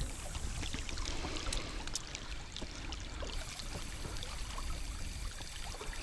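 River water lapping and trickling around a small boat, with many small splashes and a steady low rumble.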